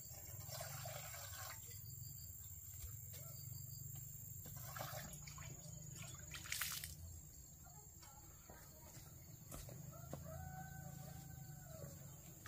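A rooster crowing, one long arching call near the end, over a faint steady background. A short sharp clatter about six and a half seconds in is the loudest moment.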